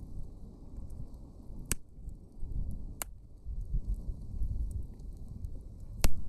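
Campfire of thick logs burning: a steady low rumble with three sharp crackling pops from the wood, the last and loudest near the end.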